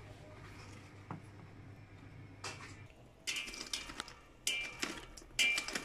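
Metal tongs stirring and knocking burning charcoal lumps in a kettle barbecue grill: a quick series of short clinks and scrapes in the second half, after a faint low hum and a couple of soft knocks.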